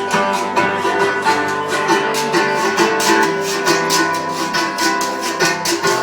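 Live acoustic guitar strummed in a steady, even rhythm, about four strokes a second, with chords ringing between the strokes and no singing.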